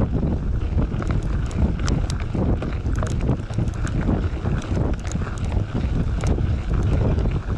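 Wind buffeting the microphone while a mountain bike rolls along, making a steady low rumble. Over it, a 29x2.6 Maxxis Minion DHR II tire crunches over gravel, with small stones clicking all the way through.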